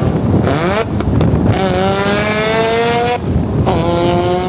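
Mazda FD RX7's big single-turbo 13B rotary engine accelerating hard through the gears. The revs climb quickly, break off at a gear change about a second in, climb more slowly, break off again past the three-second mark and start climbing once more.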